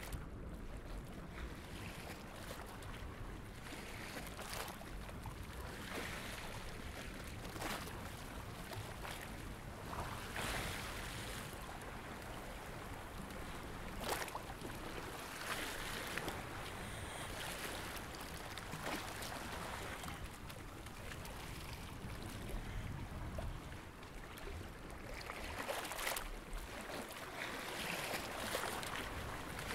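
Deep-sea underwater ambience: a steady low rush of water noise, with brief louder hisses every few seconds.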